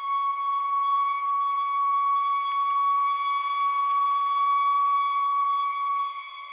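Siren holding one steady, high-pitched tone without rising or falling, briefly dipping in level near the end.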